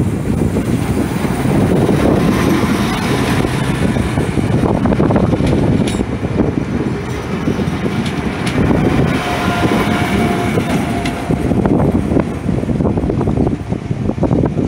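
PESA SA136 diesel multiple unit passing close along the platform: diesel engine running and wheels rolling on the rails, loud and steady. A faint thin whine comes in for a couple of seconds midway.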